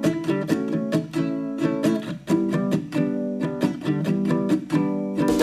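Background music: acoustic guitar or ukulele strumming chords in a steady rhythm.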